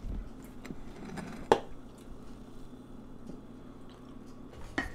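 Quiet indoor room hum with a few faint ticks, a sharp knock about a second and a half in, and a smaller knock near the end.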